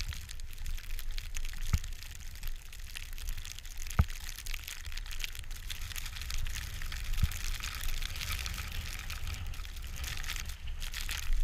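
Skis sliding and hissing through fresh powder snow, with wind rumbling on the microphone and a few sharp knocks.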